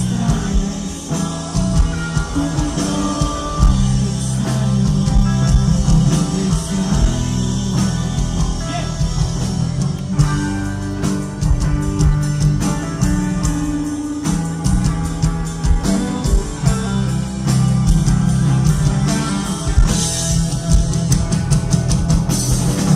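A rock band playing live: electric guitar, bass and drum kit, with a voice singing at times. The drumming gets busier about halfway through.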